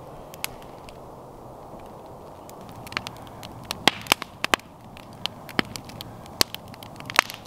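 Wood campfire crackling, with sharp pops and snaps that come more often from about three seconds in, over a steady low rush.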